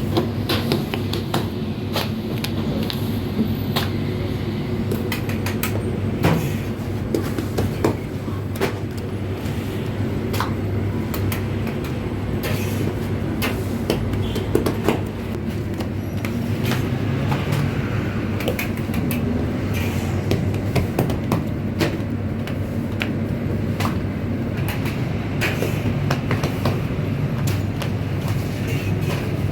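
Bakery machinery running steadily with a low hum, with frequent clicks and clattering knocks.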